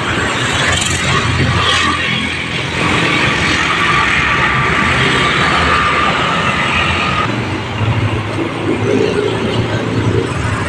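Road traffic passing close by: a steady mix of engines and tyres, with a faint steady whine for a few seconds mid-way.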